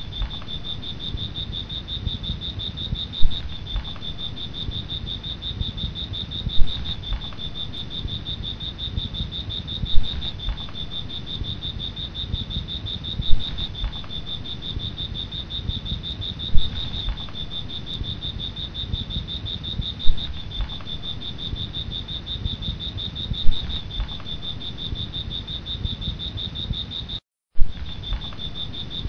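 A steady, high chirring of insects, like crickets, over a low rushing noise. A short loud sound recurs about every three and a half seconds.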